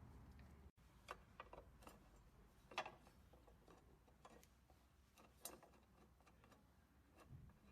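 Near silence with a few faint scattered clicks and taps, the sharpest about three seconds in and another about five and a half seconds in.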